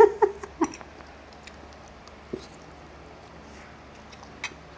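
A short burst of laughter in the first moment, then quiet eating at the table with a couple of soft clicks of utensils, one about two seconds in and one near the end.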